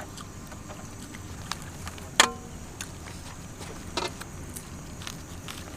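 Steady low background noise with a few isolated sharp clicks, the loudest a brief ringing click about two seconds in and a softer one about four seconds in.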